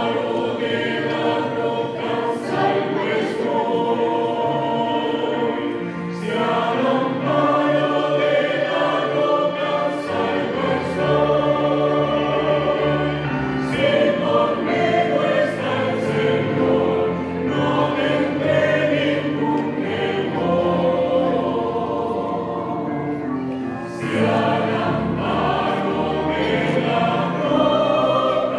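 Mixed church choir of women and men singing a Spanish-language hymn in parts, accompanied by piano, in sustained phrases.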